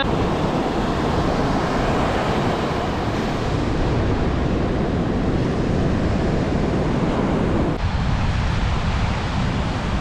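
Sea waves washing on the shore mixed with wind buffeting the microphone: a steady, dense rush of noise, heaviest in the lows, that thins slightly about eight seconds in.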